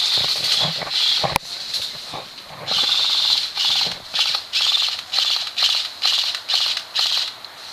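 Airsoft rifle firing in short, rapid bursts, a fast rattle of shots, about two bursts a second through the second half. A sharp single click about a second and a half in.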